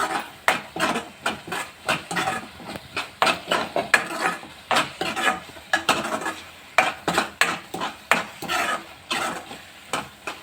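A spatula stirring and scraping around a kadai in quick repeated strokes, about two to three a second, mixing ground spices into a frying onion and tomato masala that sizzles underneath.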